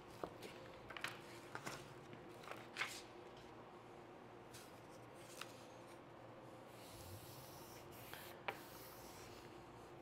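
Faint rustling and scattered light clicks of printed adhesive vinyl and its paper backing being handled and peeled, with a squeegee rubbing the vinyl down onto the panel. The clicks come mostly in the first three seconds, with a few later on.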